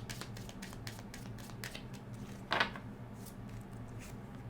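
Oracle cards being shuffled by hand: a quick, irregular run of soft card clicks and slaps that thins out after about two seconds, over a low steady hum.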